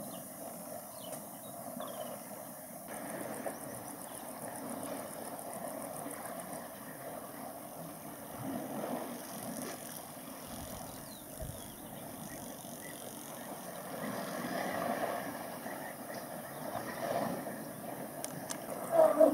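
Elephants splashing and wading in a dam's water, over a steady low rumble, the splashing swelling now and then.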